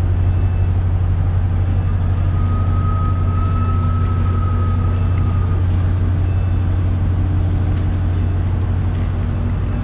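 Steady low hum of a ship's machinery, heard on the bridge. Faint short high pips come about every second and a half, and a faint high whine runs through the middle.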